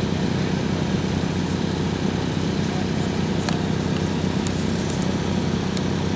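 A small engine running steadily: an unbroken low hum made of several evenly spaced tones, with a few faint clicks about midway.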